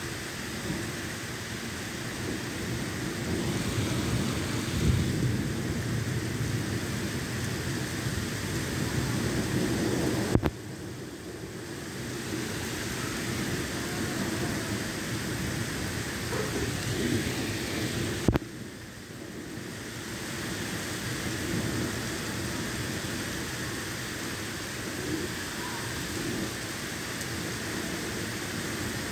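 Heavy rain pouring down in a thunderstorm, with gusting wind and a low rumble throughout. Two sharp clicks, about ten and eighteen seconds in, are each followed by a brief dip in the sound.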